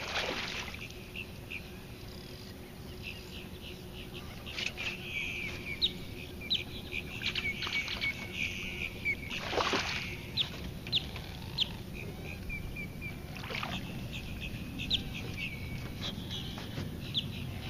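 A hooked largemouth bass splashing at the surface as it is played to the boat, a few splashes with the biggest about ten seconds in. Birds chirp repeatedly in short, irregular calls throughout.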